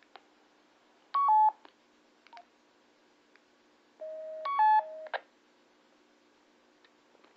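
Handheld two-way radio sounding electronic tone beeps: a quick falling two-note beep about a second in, then a short run of several beeps at different pitches about four seconds in, with faint button clicks in between.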